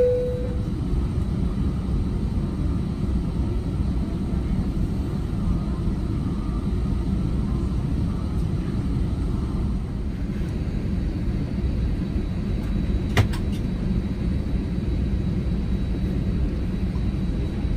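Steady low rumble of the cabin noise inside an Airbus A321 airliner, with a brief fading tone at the very start and a single sharp click about 13 seconds in.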